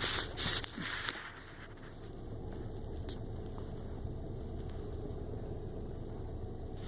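A few short plastic rustles and scrapes in the first second, then a steady low hum.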